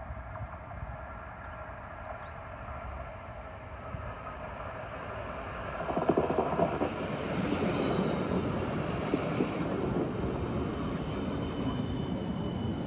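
CAF Urbos 100 tram approaching along the track and passing close by, its wheels running on the rails. The sound builds steadily and is loudest from about halfway through as the tram goes past.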